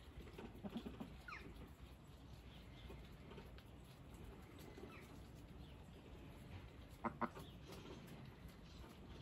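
Domestic ducks giving a few soft, short calls, then two sharper calls in quick succession about seven seconds in.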